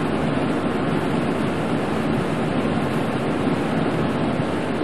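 Steady rushing noise inside a pickup truck's cab while driving: the defroster fan blowing on the windshield, mixed with tyre and road noise on a wet, snowy road.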